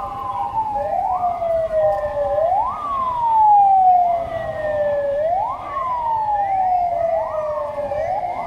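Police vehicle sirens wailing. Two overlapping sirens each sweep up sharply in pitch and then slide slowly back down, repeating every two to three seconds.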